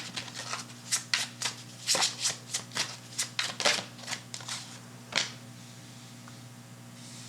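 A deck of tarot cards being shuffled by hand: a run of quick, irregular card snaps and riffles for about five seconds, ending with one last snap, to draw a single card.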